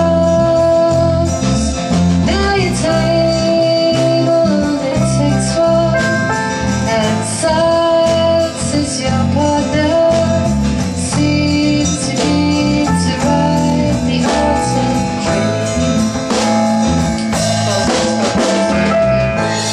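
A woman singing a song with long held notes while strumming an acoustic guitar.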